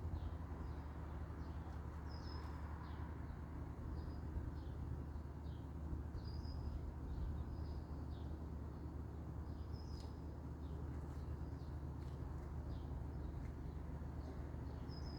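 Small birds chirping now and then, short high calls scattered through, over a steady low outdoor rumble.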